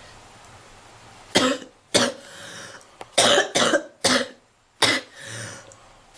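A girl coughing hard while smoking: after about a second, six sharp coughs come in quick bunches, with softer breaths drawn in between.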